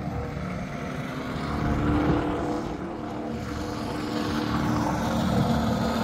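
An engine running steadily with an even hum.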